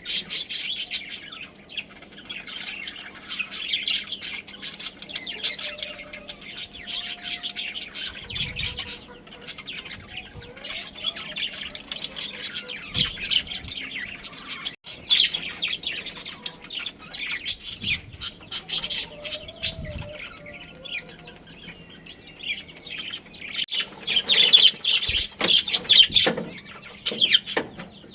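A flock of budgerigars chirping and chattering at once: a dense run of quick, high chirps and squawks, busiest again a few seconds before the end.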